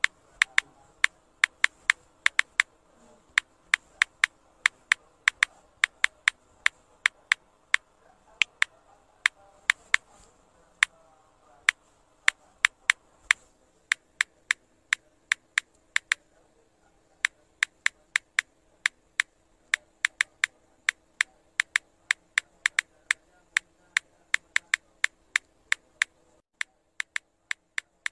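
Typing sound effect: sharp single key clicks, about two a second with short pauses, over a faint steady hum. Near the end the hum stops and the clicks get quieter.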